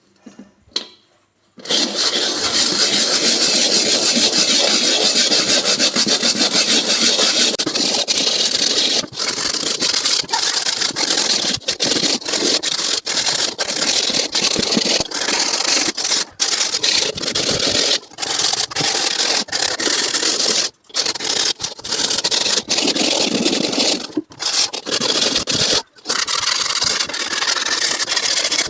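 Hacksaw-blade scraper scouring thick burnt-on crust from a frying pan: continuous rasping scraping that starts about a second and a half in, with a few brief pauses.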